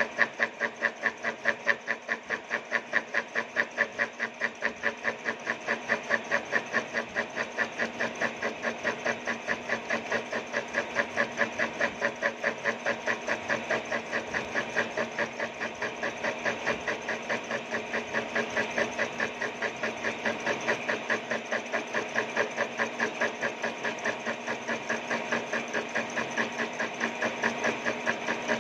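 Milling machine cutting tooth slots into the rim of a metal disc with a spinning disc cutter: a steady, even rhythmic knocking of the interrupted cut, about four strikes a second, over the machine's constant running hum.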